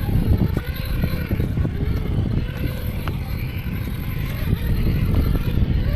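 Small electric motor and gearbox of an FTX Gladius RC rock crawler whining faintly as it climbs over rocks, under a steady low rumble of wind on the microphone.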